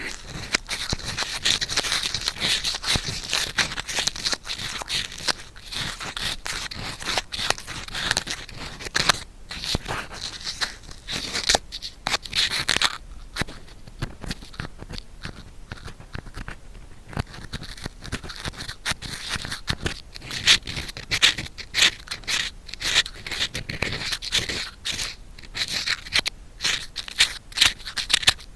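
Bamboo ear pick scratching and scraping against a binaural microphone's ear, a dense run of crackly scratches that eases off for a few seconds near the middle.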